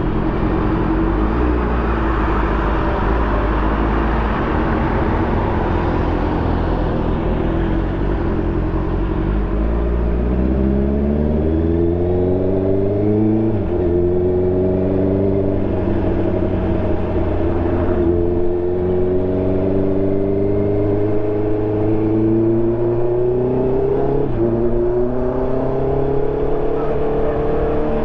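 Honda CB650R's inline-four engine breathing through an SC Project exhaust, running at a low steady note and then accelerating, its pitch climbing and dropping back at each upshift, two or three times.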